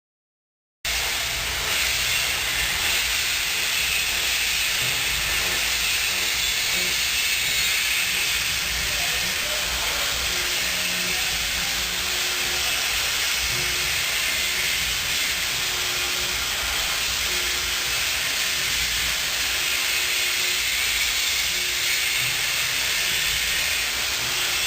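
NUMEN Delta-6 machine high-speed milling a stainless steel part, a loud steady hiss of cutting that starts abruptly about a second in, with a faint low tone coming and going.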